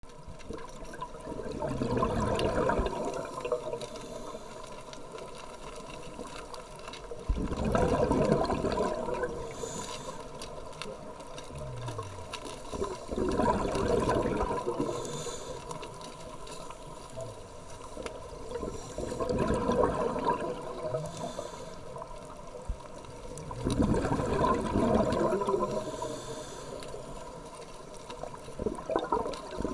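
A scuba diver breathing through a regulator underwater: a gurgling burst of exhaled bubbles every five to six seconds, with a faint hiss of inhalation between them.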